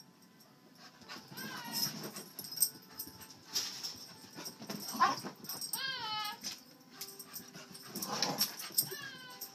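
A dog giving short, high, whining yelps several times, the clearest about halfway through, amid light knocks.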